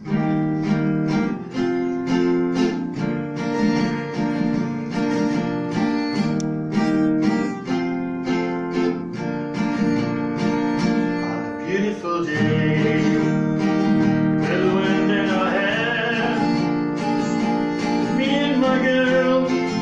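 Steel-string acoustic guitar strummed in a steady rhythm as a song's opening. A little past halfway a man's voice comes in singing over it.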